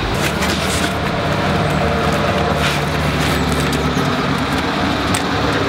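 A steady, loud motor-vehicle engine drone with a low hum, from traffic at the roadside; the lowest part of the hum fades about four seconds in, and there are a couple of faint clicks.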